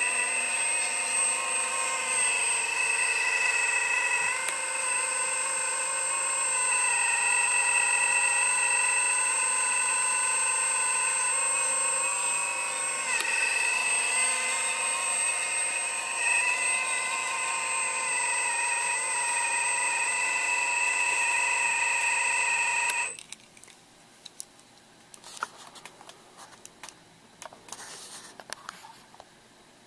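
Electric hydraulic pump of an Earth Digger 4200 XL RC excavator whining steadily while the hydraulics are worked, its pitch dipping and bending now and then under changing load. It shuts off abruptly about 23 seconds in, leaving a few faint clicks.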